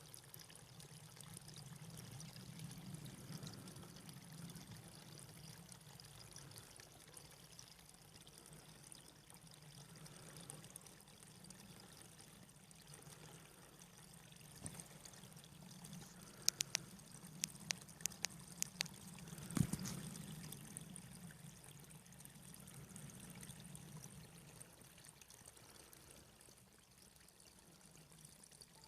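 Faint, steady trickle of flowing water. About two-thirds of the way through comes a quick run of sharp clicks, then a single thump.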